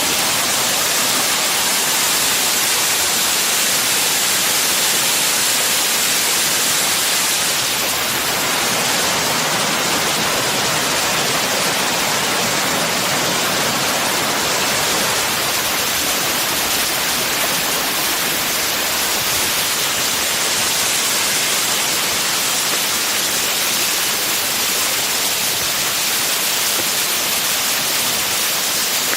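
Rushing water, a steady loud hiss of falling or fast-flowing water beside the mountain trail.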